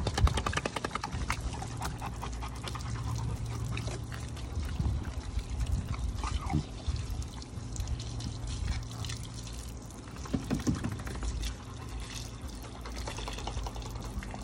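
Garden hose spraying water onto a dog's wet coat and the concrete, a steady splashing patter.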